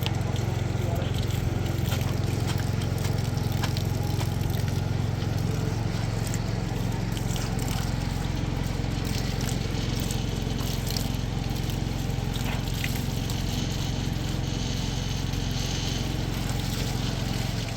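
A motor-driven machine running steadily with a low hum, mixed with wet sloshing and trickling; it stops at the very end.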